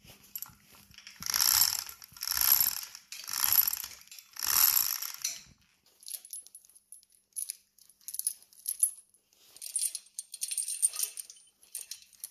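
Steel chain rattling as it is handled, in four long clattering swells about a second apart, followed by lighter, scattered clinks of links being gathered onto a lifting hook.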